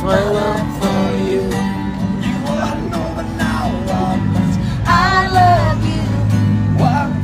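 Street busker strumming an acoustic guitar and singing along.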